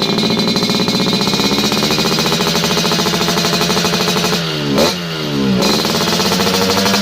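Two-stroke Yamaha RX-series motorcycle engine idling through a chrome racing expansion-chamber exhaust, with one quick throttle blip a little past halfway: the pitch rises sharply and falls back to idle.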